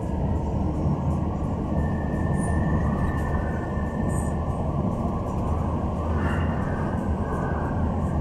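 Steady engine and road rumble inside the cabin of a moving vehicle driving along a highway.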